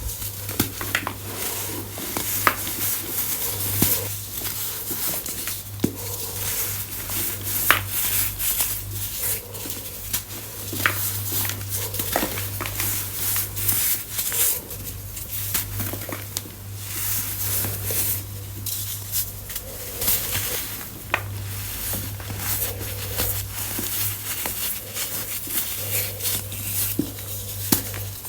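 Reformed baking soda chunks being crushed: continuous crunching and crumbling with scattered sharper snaps, over a steady low hum.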